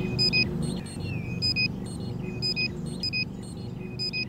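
Electronic countdown beeps, short high tones about once a second, over a steady low drone.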